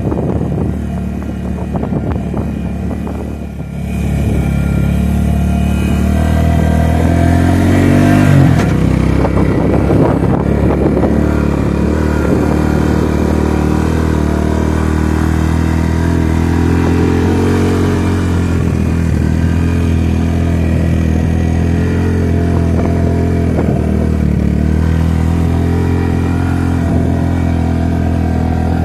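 Suzuki King Quad ATV engine running under way. It gets louder about four seconds in as the throttle opens, then climbs and falls in pitch a few times as it is revved and eased off.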